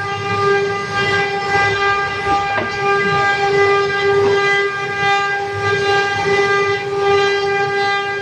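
Steady high-pitched whine of a CNC wood router running at constant speed, one unwavering tone with many overtones over a low rumble.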